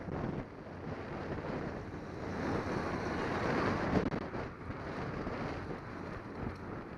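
Wind rushing over a cyclist's camera microphone while riding in traffic, with a car overtaking close alongside: the noise swells from about two seconds in, peaks around four seconds as the car passes, then eases.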